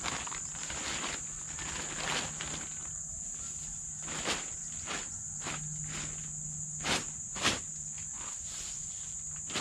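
A steady high-pitched trill of crickets or other night insects, with irregular sharp taps scattered through it, a few louder ones near the end.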